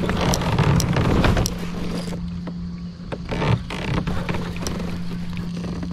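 Knocks and clicks of gear being handled on a fishing kayak, over a steady low hum. A rushing noise of water or wind fills the first two seconds.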